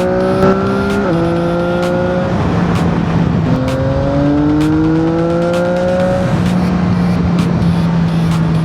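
CFMoto 675NK's 674 cc three-cylinder engine accelerating: the revs climb, drop sharply at a gear change about a second in, and climb again. After a short break there is a longer climb, and from about six seconds in it settles to a steady note, with a steady rushing noise underneath.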